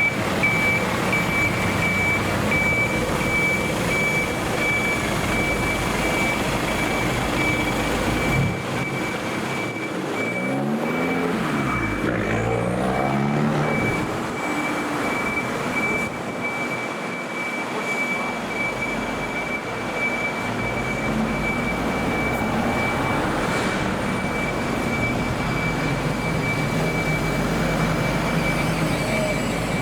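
A heavy fire truck's engine pulling away, rising and falling in pitch as it accelerates, most clearly about a third of the way in. Under it runs a steady, evenly pulsed high electronic beeping.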